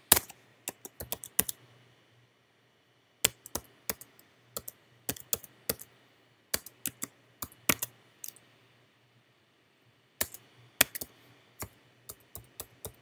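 Typing on a computer keyboard: irregular runs of sharp key clicks, broken by two pauses of a second or two, one about two seconds in and one about eight and a half seconds in.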